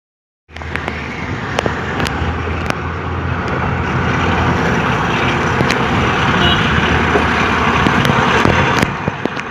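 Diesel train pulling in: a steady low engine rumble and rolling rail noise with frequent sharp clicks and clacks, starting abruptly about half a second in.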